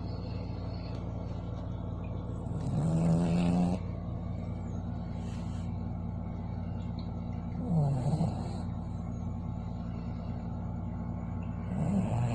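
A dog snoring in its sleep: three snores about four to five seconds apart, each lasting up to about a second, over a steady low hum.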